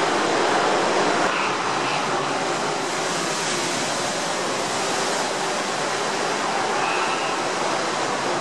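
Ocean surf churning and washing over the rocks inside a sea cave: a steady, even rushing noise.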